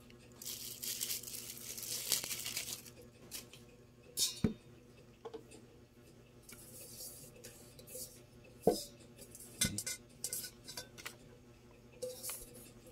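Hodekt meat grinder parts being handled: a rustle for the first few seconds, then scattered clinks and knocks of the steel bowl, plastic lid and blades against each other and the table.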